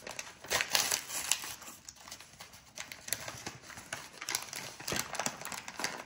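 Plastic wrapper of an individually packaged Japanese cake being handled and torn open: crinkling with sharp, irregular crackles, thickest about a second in and again near five seconds.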